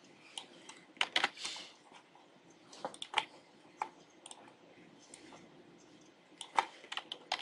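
Computer keyboard keys and mouse buttons clicking: a dozen or so short, irregular taps, some in quick clusters, with pauses between.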